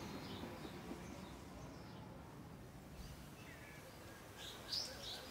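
Faint background ambience with a few short, high bird chirps near the end.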